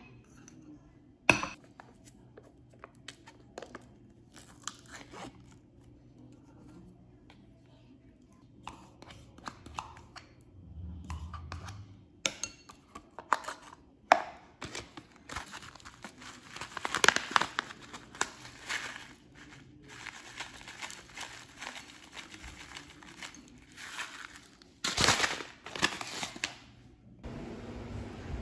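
Small handling sounds of making a yogurt bowl: a ceramic bowl set down, a plastic spoon scraping and tapping yogurt from its plastic cup into the bowl, then granola tipped in with a rustling clatter near the end.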